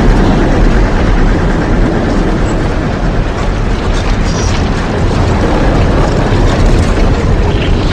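Tornado sound effect: loud, steady wind noise with most of its weight low down, running without a break.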